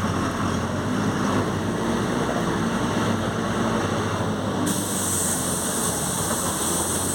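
Mercedes-Benz OF-1721 BlueTec5 bus's diesel engine running steadily under way. About four and a half seconds in, a high hiss joins in.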